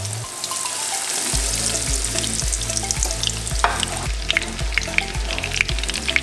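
Coconut-crusted hogfish fillets sizzling and crackling as they shallow-fry in hot oil in a pan, a steady sizzle that shows the oil is hot enough for the fish. Tongs shift and turn the fillets from about halfway through, adding a few sharp clicks and spatters.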